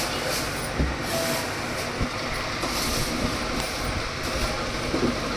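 Washing machine running noisily, a steady mechanical rumble with a few knocks.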